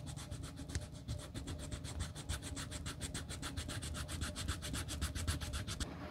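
Small abrasive pad sanding the worn edge of a coated-canvas wallet by hand, in quick even back-and-forth strokes of about seven a second, the start of re-edging the damaged edge. The strokes stop abruptly near the end.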